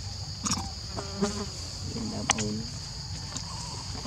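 Steady high-pitched insect drone, with a few short voices or animal calls breaking in and a sharp click a little past two seconds in.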